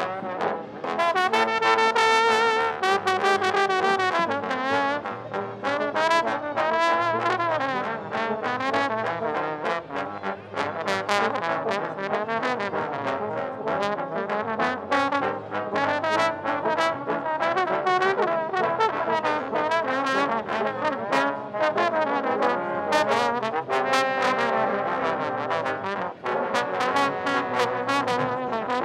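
B.A.C. trombone played in a long, busy passage of quick notes, the pitch moving up and down continually.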